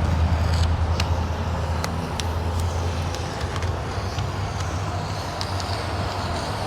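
Steady low hum typical of a motor vehicle or nearby traffic. Light, sharp clicks are scattered through it as window tint film is handled and cut with a blade along the rubber window trim.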